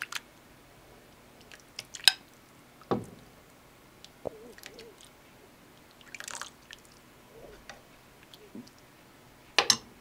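A metal spoon clinking and knocking against a pan and a china bowl while fish soup is ladled, a few scattered clinks with the sharpest about two seconds in, and a short splash of liquid about six seconds in.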